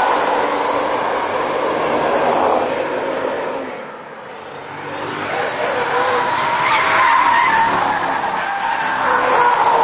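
A car driven hard with its tyres squealing. It fades about four seconds in, then builds again.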